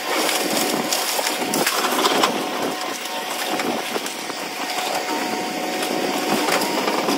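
Cat 340 hydraulic excavator running while its grapple crushes and tears house debris, with irregular crunching and cracking of wood and sheet metal over a steady engine tone.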